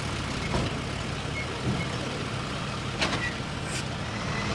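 Heavy diesel earthmoving machinery running steadily, with three sharp knocks spread through it, like metal parts clanking.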